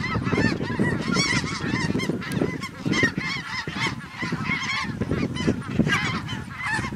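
A large flock of snow geese calling overhead, many high-pitched honks overlapping in a constant clamour, with wind rumbling on the microphone underneath.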